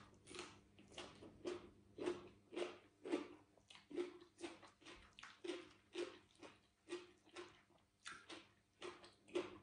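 A person chewing a mouthful of raw vegetables with the mouth close to the microphone: faint, regular chews, about two a second.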